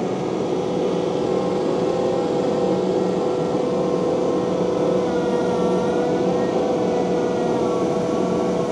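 Takeuchi TL12V2 compact track loader running steadily with a constant whine, its higher tones wavering slightly in pitch in the second half.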